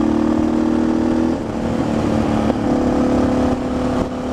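Suzuki DR650 single-cylinder engine running under way, heard from a helmet camera over wind rush. About a second and a half in, the engine note wavers and drops, then holds steady at a slightly lower pitch.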